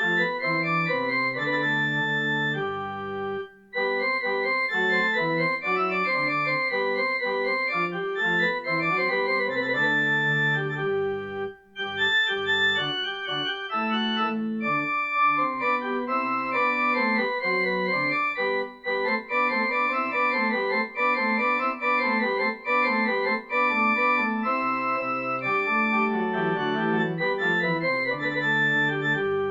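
Organ playing a slow, chordal instrumental piece, with short breaks about three and a half and eleven and a half seconds in.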